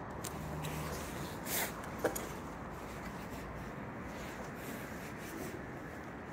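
Rustling and scuffing as someone moves over a debris-covered floor with a handheld camera, with two short clicks about one and a half and two seconds in.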